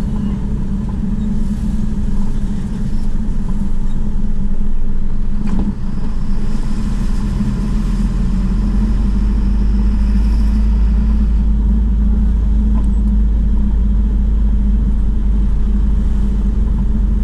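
Car driving slowly, its engine and tyres making a steady low hum that grows a little stronger about six seconds in. A single short knock comes about five and a half seconds in.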